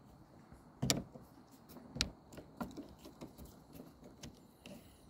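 Screwdriver clicking against metal while working the grip screw loose on an AK-pattern pistol: a few sharp clicks, the clearest about one and two seconds in, with fainter ticks and handling noise between.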